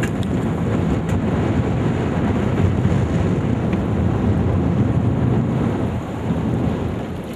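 Wind rumbling steadily on the microphone, with water and boat noise underneath.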